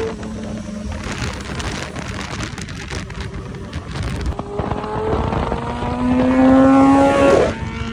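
Motorcycle engines running at road speed with wind rush. About halfway through, one engine accelerates and rises in pitch, getting louder, then its pitch drops sharply near the end.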